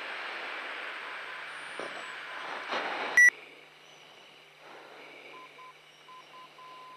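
Steady rushing noise inside an F-15C Eagle's cockpit. About three seconds in comes a sharp, short beep, the loudest sound here. After it the rush drops and a steady tone beeps on and off in an uneven pattern.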